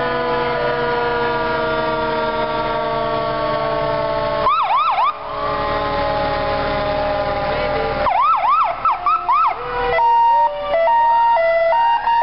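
Several fire truck sirens sounding together: a long, slowly falling wail, quick whooping yelps twice, then a hi-lo two-note tone joined by another siren rising in pitch near the end.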